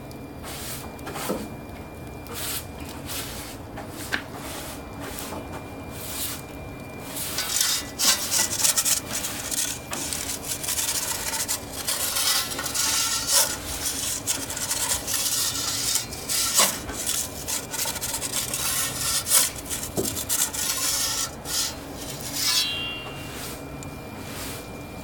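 Repeated scraping and rubbing of metal, typical of an aluminium pizza peel or pan being worked, with a few sharp clicks. It starts about seven seconds in and stops a few seconds before the end, with a short squeak as it stops.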